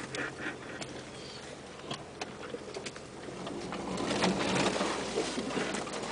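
Inside the cabin of a 1997 Land Rover Discovery moving over a rough forest trail: scattered knocks, clicks and creaks from the body and suspension over a faint low engine hum. About four seconds in, branches scrape along the windshield and body, the loudest part.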